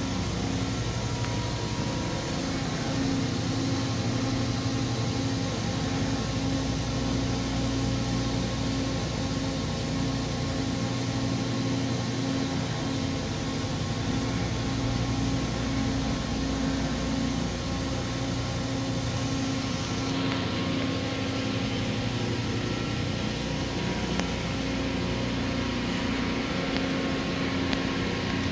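Steady machine-shop drone: a constant mechanical hum with several steady low tones under a broad hiss, like powered industrial equipment with pumps and fans running. The high hiss thins out a little about twenty seconds in.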